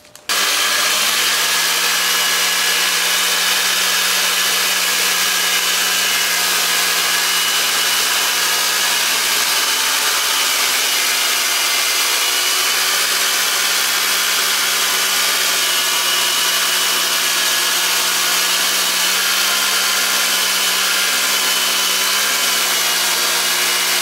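Homemade band sawmill running steadily while its blade rips a tapered board off a cant: a steady engine drone with a high hiss from the cut. It starts abruptly just after the beginning.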